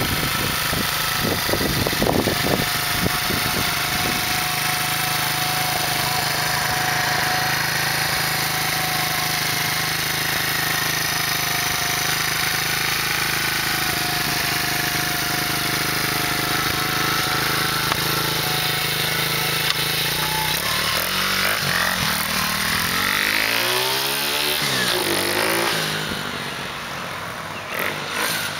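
TaoTao 125 pit bike's single-cylinder four-stroke engine running: uneven for the first few seconds, then idling steadily. About twenty seconds in it revs up and down as the bike is ridden off, and the sound fades near the end.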